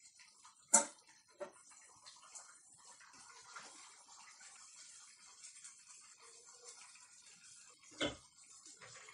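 A utensil knocking sharply twice as it is set down, then a thick tamarind gravy simmering in a clay pot on a gas burner, with faint, irregular bubbling and crackle. A dull thump near the end.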